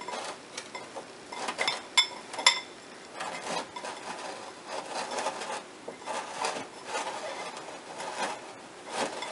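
Hands kneading a damp, crumbly bath bomb mixture of baking soda, citric acid, Epsom salt and cornstarch in a small glass bowl. The powder rubs and scrapes against the glass, with a few light ringing clinks on the bowl about two seconds in.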